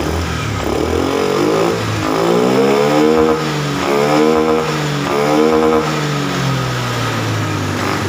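Honda Vario 110 scooter's single-cylinder engine idling, then revved in three throttle blips about a second apart, its pitch rising and falling each time, before settling back to idle. It is being run up to heat to test for a weak pulser (crankshaft position sensor), which the mechanic suspects of making it stall when hot with blink code 52.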